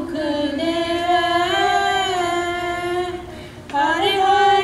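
Sikh devotional hymn (shabad kirtan) sung by a female voice in long, drawn-out notes with gliding pitch, breaking off briefly about three seconds in before the next phrase begins.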